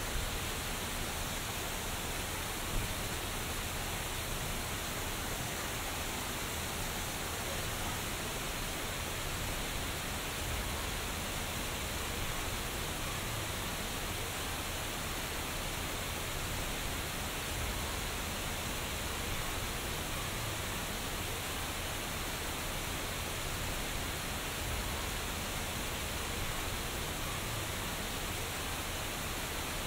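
Steady rain falling on a rock-lined pool, mixed with small waterfalls splashing over lava rock: an even, unbroken hiss of water. A single short tap stands out about three seconds in.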